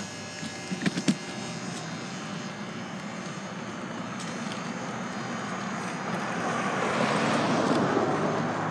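Street traffic: a passing car heard as a steady rush that swells louder toward the end. A few brief knocks about a second in.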